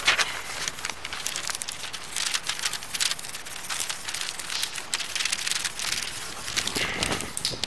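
Irregular crackling and rustling noise, dense and high-pitched, with a few sharper crackles near the start and near the end.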